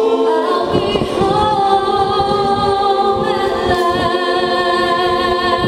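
A mixed choir of young women and men singing a cappella in Tongan church style, holding long chords in several voice parts and moving to a new chord about a second in and again after about three seconds.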